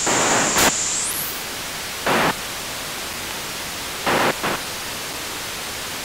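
Electronic white noise hissing steadily. A high steady whistle in the first second sweeps up and out of hearing. Short louder bursts of noise come just after half a second, about two seconds in, and twice close together about four seconds in.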